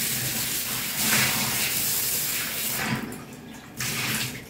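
Water running and splashing as chana dal is rinsed. It stops about three seconds in, with a short second splash near the end.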